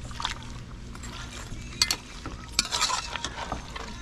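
A metal spoon stirring a cooking pot, clinking and scraping against its side a few times, with a cluster of scrapes near the end, over a steady low hum.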